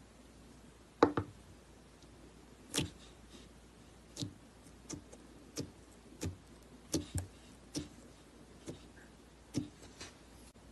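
Clear glitter slime in a plastic tub being poked with a finger, making about a dozen short, sharp clicking pops at uneven intervals, the loudest about a second in.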